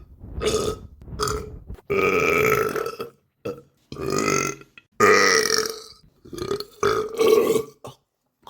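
A person burping over and over: a string of about seven separate burps, some short and clipped, a few drawn out to a second or so.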